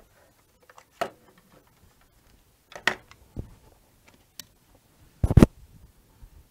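Scattered clicks and knocks of a power supply cable being handled and plugged into the CNC 3018 Pro, with a loud double knock about five seconds in.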